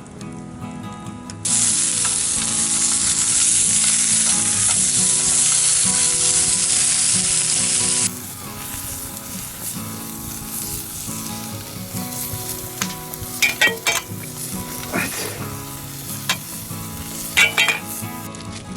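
Food sizzling in a hot pan over a campfire. A loud, strong sizzle starts suddenly about a second and a half in and drops away abruptly around eight seconds. A quieter sizzle follows, with a few sharp pops.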